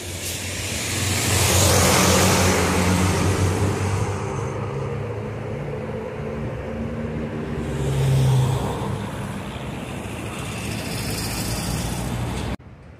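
Diesel coach bus engine running as the bus moves off, with a loud rushing hiss in the first few seconds and the engine swelling again about eight seconds in. The sound cuts off suddenly near the end.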